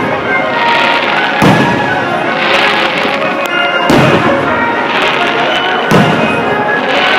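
Fireworks exploding: three booms about two seconds apart, each followed by a crackling hiss, over the show's accompanying music.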